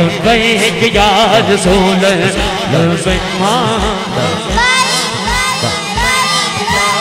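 Devotional naat singing: wavering, drawn-out vocal lines over a steady low beat, amplified through the sound system.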